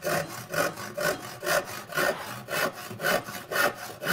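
Irwin 20-inch Universal handsaw cutting a wooden board with quick back-and-forth strokes, an even run of about four rasps a second, as the cut is started and the kerf begins to guide the blade.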